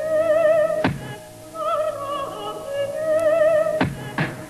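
Background music: a long, held melody with strong vibrato, with sharp percussive hits about a second in and twice near the end.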